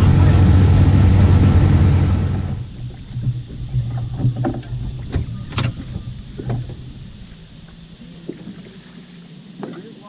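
Outboard motor boat running at speed: the engine hums under wind and water rush, then cuts off abruptly about two and a half seconds in. After that come quieter scattered clicks and knocks over a low steady hum, with one sharp tick in the middle.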